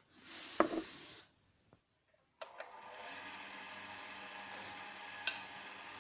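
Light handling noise and a click, then a woodturning lathe's electric motor switched on about halfway through and running steadily with a low hum, with one sharp click near the end.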